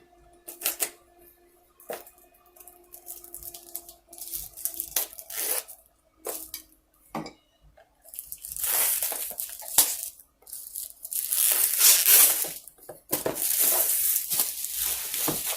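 A cardboard kit box being opened by hand: scattered taps and clicks at first, then from about eight seconds in, loud tearing and rustling of packaging.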